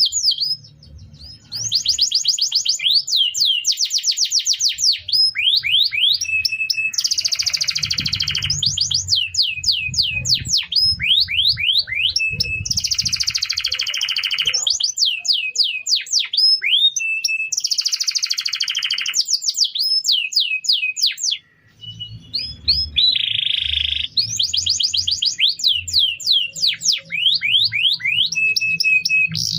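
Domestic canary singing a long, loud song of rapid rolling trills and repeated steep downward-sweeping whistled notes, in phrases broken by brief pauses about a second in and again near two-thirds of the way through.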